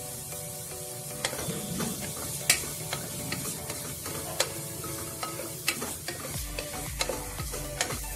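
Sliced onions, green chillies and ginger-garlic paste sizzling in ghee in a metal pot while a ladle stirs and scrapes them, sautéing until the raw smell of the paste goes. Sharp knocks of the ladle against the pot come every second or so, the loudest about two and a half seconds in.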